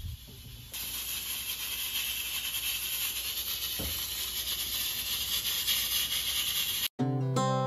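A steady hissing noise, like spraying water or escaping steam, starts abruptly about a second in and cuts off sharply near the end, where acoustic guitar music begins.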